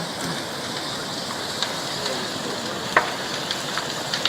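A burning commuter train's fire: a steady hiss with scattered crackles and one sharp pop about three seconds in.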